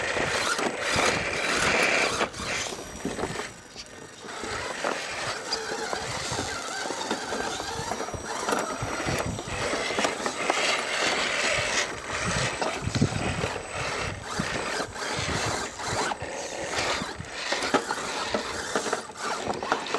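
Scale RC rock crawler trucks driving over rough rocks: the whir of their electric motors and geared drivetrains, with tyres and chassis clicking and scraping on stone.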